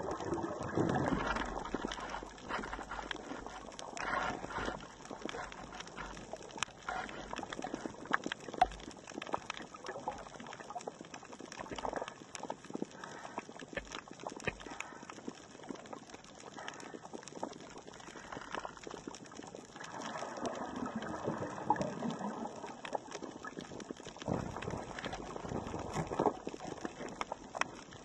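Underwater sound on a coral reef: a constant crackle of sharp clicks, with swells of rushing water noise now and then.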